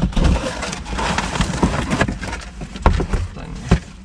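Large cardboard parcel being handled in a car cabin: cardboard scraping and rubbing, with several knocks, the sharpest about three seconds in and just before the end.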